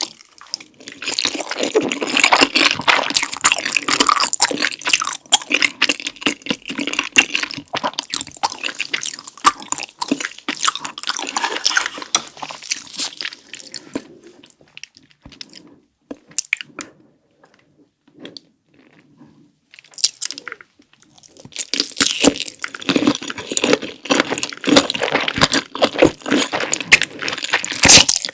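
Close-miked chewing of thick, saucy Carbo Buldak noodles and sausage with cheese sauce: wet, sticky mouth sounds with many small crunch-like clicks. The chewing goes quiet for a few seconds around the middle, then picks up densely again.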